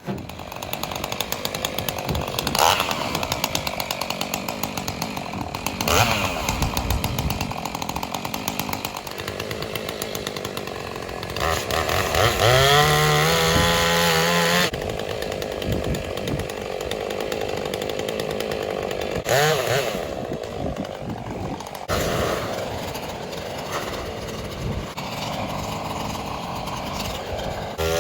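Two-stroke chainsaw running loudly, revved hard about twelve seconds in with its pitch climbing steeply, then settling back, and revving up again at the very end.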